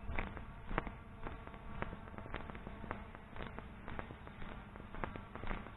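Quiet buzz of the MJX Bugs 5W quadcopter's brushless motors and propellers as it flies close by, following a walking person. Footsteps on grass tick through it about twice a second.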